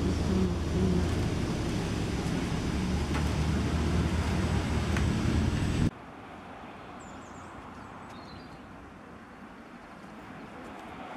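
City street traffic noise: a steady rumble of passing cars. It cuts off suddenly about six seconds in, giving way to much quieter street ambience.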